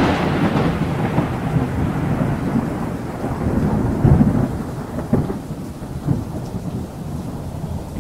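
Thunderstorm sound effect: rolling thunder over rain, swelling again about four seconds in and slowly fading.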